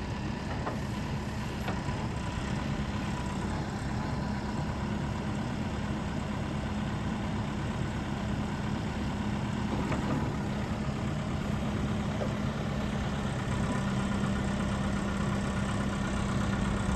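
JCB 215E backhoe loader's diesel engine idling steadily.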